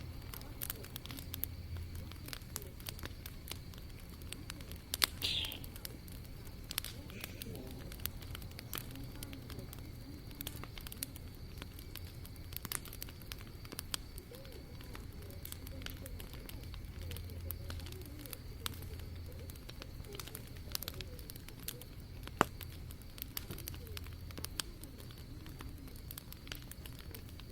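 Wood fire crackling in a fireplace: scattered, irregular pops and snaps over a steady low hum, with one short, higher sound about five seconds in.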